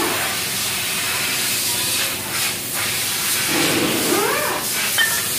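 Engine coolant pouring in a steady stream from under the engine and splashing into a drain container, a continuous hiss: the cooling system being drained to replace the water pump.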